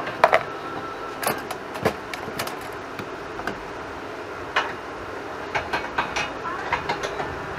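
Irregular metal clanks and knocks as a steel steering rack is lifted and fitted into a go-kart frame, over a steady background hum.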